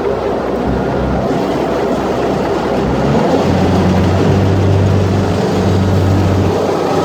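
Rice combine harvester running: a steady engine drone with machinery noise over it. About three seconds in the low hum changes and grows a little louder.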